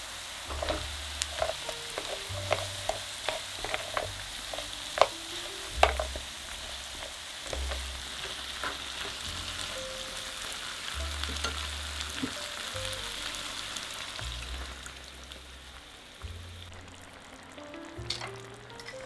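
Onions, cashews and tomato chunks sizzling in oil in a frying pan, with a wooden spatula knocking and scraping against the pan as it stirs. The clicks are thickest in the first few seconds, and the sizzle thins out near the end.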